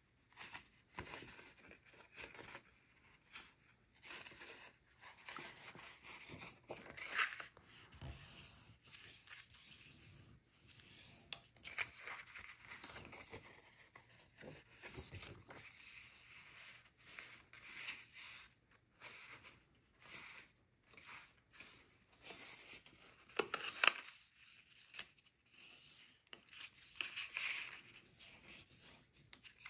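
Cut paper pieces being folded and creased by hand along their score lines: soft, irregular rustling, rubbing and crinkling of paper, with a few sharper crackles.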